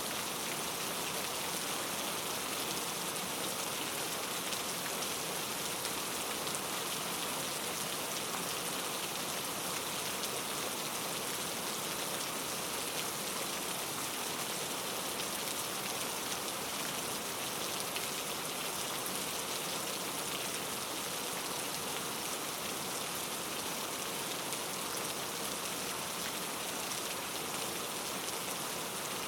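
Steady rain falling on a surface, an even hiss of many drops with no let-up or thunder.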